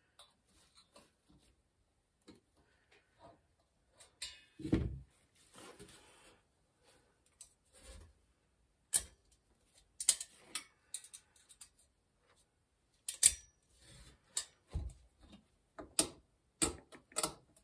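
Steel picks clicking and scraping against the snap ring and chromed steel chainring assembly of a Shimano Front Freewheel System as the ring is pried out. The sound is scattered sharp metallic clicks and ticks, with a duller knock about five seconds in and quick clusters of clicks in the later half.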